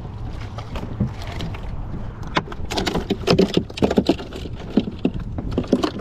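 Wind and water noise on a small boat. From about two seconds in it gives way to a quick run of knocks and rattles as the line is hauled in by hand and handled on the deck beside the cooler.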